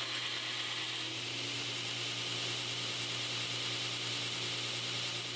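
Belt grinder running with a used 36-grit belt, grinding the 45-degree plunge cut into a 5160 steel knife blade held in a plunge line jig: a steady hiss over the motor's hum, the hum dropping slightly about a second in.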